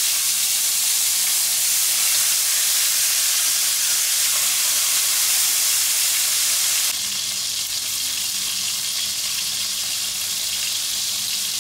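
Tambakol (tuna) fillet, sliced open daing-style, frying in a pan of hot cooking oil: a steady sizzle that drops a little in loudness about seven seconds in.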